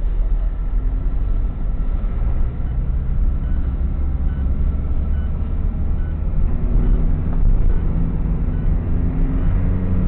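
Car's engine and road noise heard from inside the cabin through a windscreen-mounted dashcam: a steady low rumble as the car rolls slowly along the street. A faint, evenly spaced ticking runs through it.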